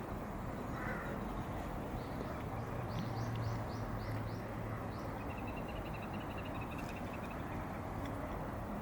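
A small bird calling over a steady low outdoor hum: a run of about six quick, high, downward-sliding notes about three seconds in, followed by a rapid trill.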